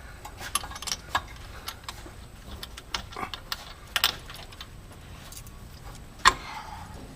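Metal hand tools and exhaust parts clinking and rattling in irregular sharp clicks, with a louder clank about six seconds in.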